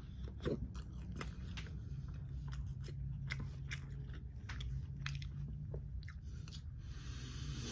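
Close-up chewing and biting of boneless breaded fried chicken, with many short crisp crunches and wet mouth clicks over a low steady hum.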